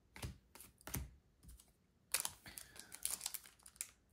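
Pokémon trading cards handled and flicked through by hand: a run of light, irregular clicks and papery slides as the cards move one over another.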